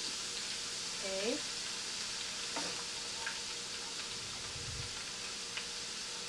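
Minced garlic frying in hot olive oil in a pan, a steady sizzle just after it is added to oil heated until ready.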